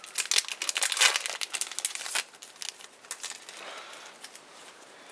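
Trading card booster pack wrapper crinkling and tearing as the pack is opened by hand, busiest for the first two seconds, then dropping to faint rustling.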